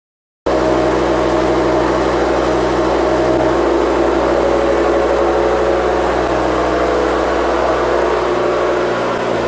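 A machine running with a steady hum that starts abruptly about half a second in and holds unchanged.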